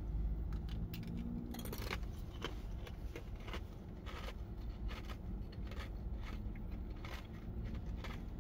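Ice being chewed: irregular crisp crunches, about two a second, over a steady low rumble.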